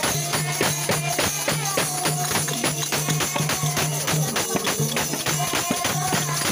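Live devotional kirtan music: a woman singing through a microphone over fast, steady jingling hand percussion.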